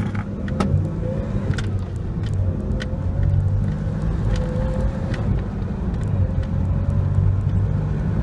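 2000 Toyota 4Runner's 3.4-litre V6 running under acceleration, heard from inside the cab as the truck gathers speed to around 45 mph at about 3000 rpm, with a few light clicks over it.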